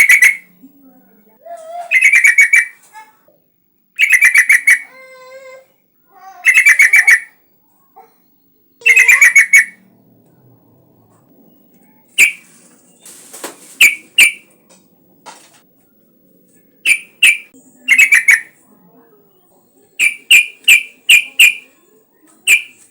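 Yellow-vented bulbul (trucukan) singing: first a string of long, bubbly warbled phrases about two seconds apart, then short, sharp chirps in quick clusters, with a run of five near the end.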